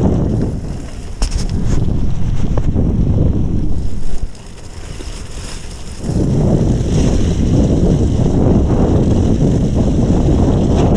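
Wind rushing over the microphone and tyres rolling on slushy gravel as a gravel bike rides a snowy logging road, with a few light clicks between about one and three seconds in. The rush dips twice and comes back loud and steady from about six seconds in.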